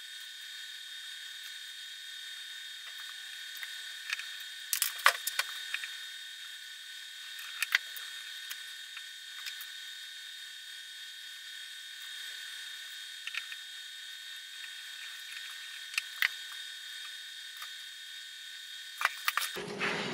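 Scattered small clicks and taps of hand tools and metal parts being handled while IGBT transistors are fitted to a welding inverter's heatsink, with a cluster about five seconds in. A steady faint high-pitched whine runs underneath.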